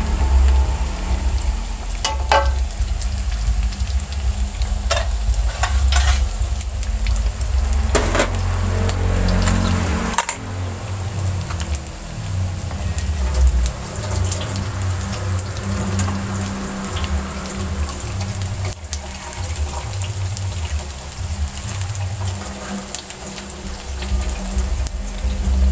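Tempe sizzling as it deep-fries in oil in a wok, over a steady low rumble. A metal spatula scrapes and knocks against the wok several times in the first ten seconds, then the frying goes on alone.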